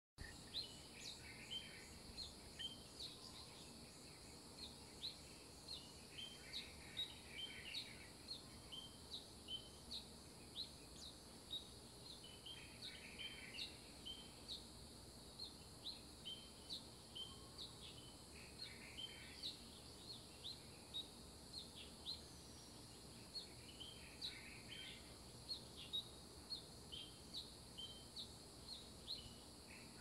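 Faint dawn chorus of birds. Short high chirps come several times a second throughout, and a longer warbling phrase repeats about every six seconds, over a faint steady hiss.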